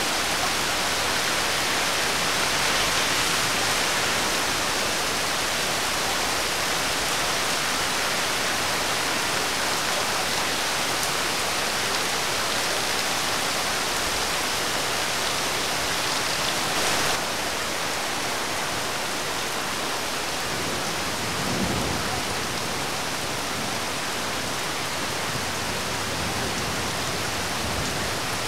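Steady rain falling on a wet road, an even hiss.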